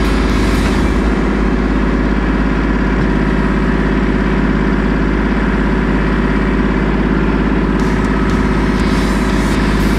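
Compact tractor's diesel engine running steadily as the tractor is driven slowly over rough ground.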